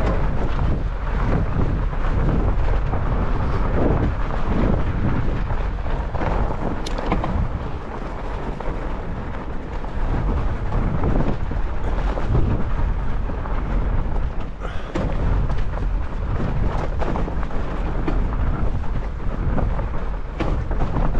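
Steady rumble of a Salsa Bear Grease fat bike riding a snowy trail: wide tyres on snow and jolts and wind buffeting the bike-mounted microphone. A few sharp clicks stand out now and then.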